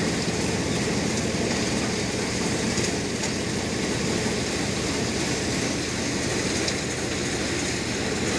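Threshing machine running steadily, a dense mechanical noise, as dry lentil plants are fed into it by hand.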